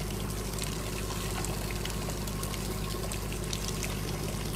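Water pouring and splashing steadily, over the steady low hum of a boat's motor.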